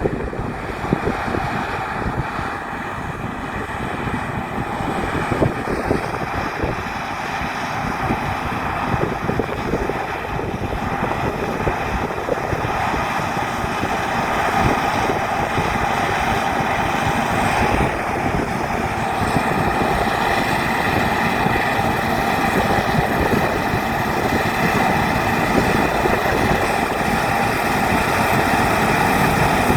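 John Deere combine harvester running steadily while cutting wheat, steady whines from its drives over the engine, with some wind on the microphone; it grows gradually louder.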